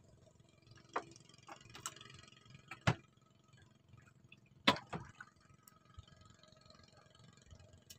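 A few sharp clicks and knocks from a spinning rod and reel being handled after a cast, the loudest about three seconds in and again just before five seconds.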